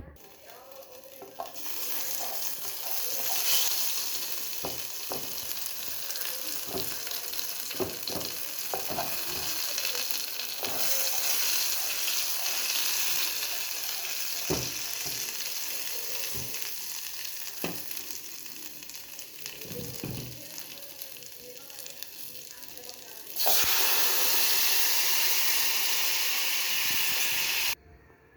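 Food sizzling as it fries in a pan, with scattered knocks of a utensil stirring it. Near the end a louder, even sizzle starts suddenly, runs about four seconds and cuts off abruptly.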